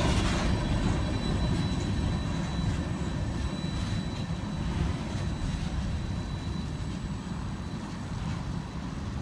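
Low rumble of the last covered hopper cars of a freight train rolling away, fading steadily as the tail end of the train draws off down the track.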